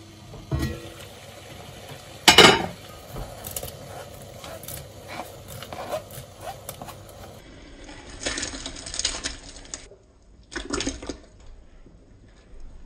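Enamelled cast-iron Le Creuset lid lifted off its pot and set down with a sharp clank about two seconds in. After it comes a run of small clicks and scrapes as a knife pushes sliced shallots, garlic and carrots off a cutting board into a pot of water.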